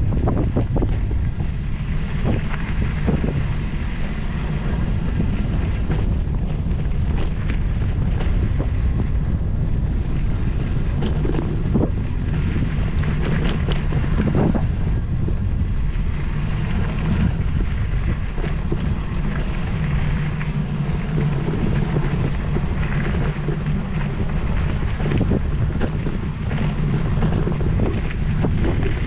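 Steady wind buffeting on the microphone with a low rumble, broken by frequent short knocks and rattles.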